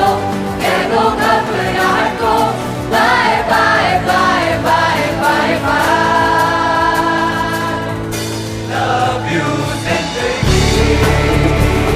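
Song with singing voices over instrumental backing; a heavy bass comes in about ten seconds in.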